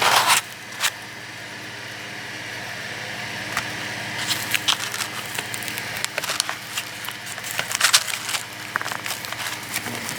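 Hands unpacking gun parts: plastic packaging crinkling and small metal parts clicking in irregular bursts, busiest in the second half, over a steady low hum.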